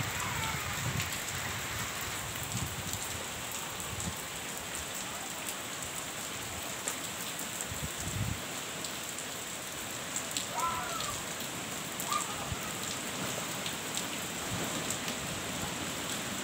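Heavy rain falling steadily in a wind-driven storm. Low rumbles of wind gusts hit the microphone near the start and about eight seconds in.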